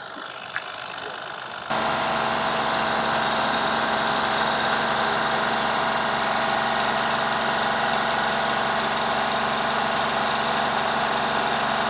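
Mahindra Bolero BS6 diesel engine running at a steady speed during a scan-tool routine test of its SCR system. About two seconds in, the sound abruptly gets louder and then holds even.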